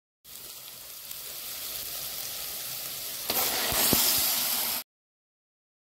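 Chopped onions and green peppers sizzling in hot oil in a pot. About three seconds in, the sizzle jumps louder as tomato sauce hits the hot pan. It cuts off suddenly near the end.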